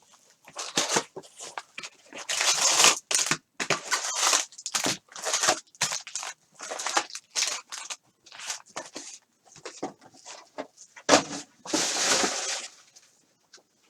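Sports card pack wrappers being torn open and crinkled by hand: irregular crackling and rustling, with longer tearing sounds about two to three seconds in and again near the end.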